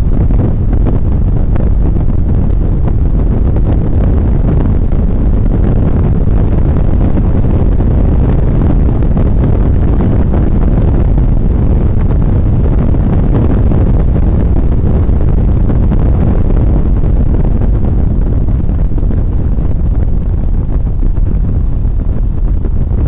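Steady low rumble of an NSX's mid-mounted V6 and road noise inside the cabin at track speed, mixed with wind buffeting on the microphone. It eases slightly near the end.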